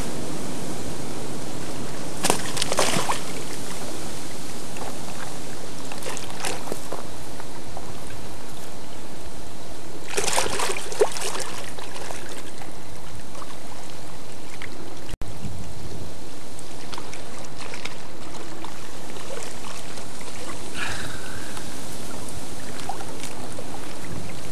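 Water sloshing and splashing in a shallow reservoir margin as a pike is held in the water by hand and released, with sharper splashes about two, six and ten seconds in over a steady rushing noise.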